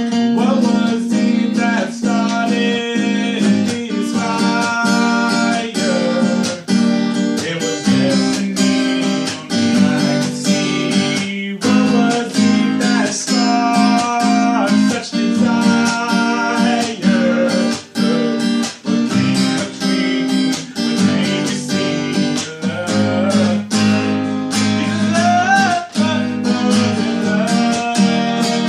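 Acoustic guitar strummed in a steady rhythm, playing a song with a melody line over the chords.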